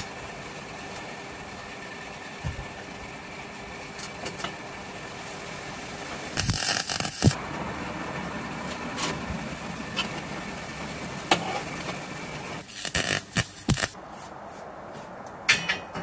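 Steel box-section tracks and magnetic welding squares clinking and scraping on a steel table as they are set in place. There are scattered clanks, with a cluster of them about two-thirds through and more at the end, over a steady engine-like hum.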